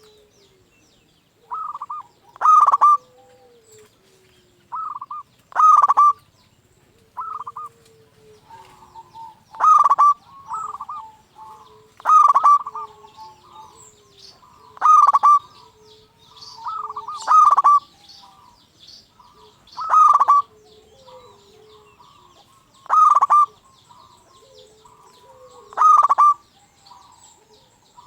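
Zebra dove (perkutut) cooing its song over and over, a short loud phrase about every two and a half to three seconds. Small birds chirp faintly behind it.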